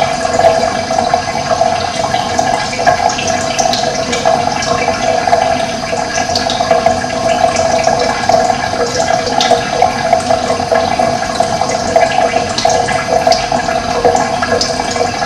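Steady rush of running water, with faint short bird chirps now and then.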